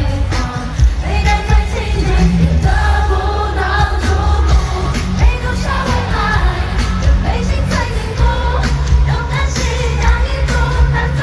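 Live Mandopop concert music: singing over a heavy bass line and a driving drum beat, played loud through an arena sound system.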